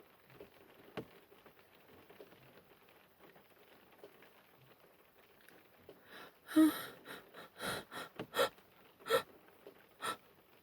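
A woman sneezes once, loudly, about six and a half seconds in, then takes a run of quick, sharp sniffs through the nose. Before the sneeze there is only faint room noise.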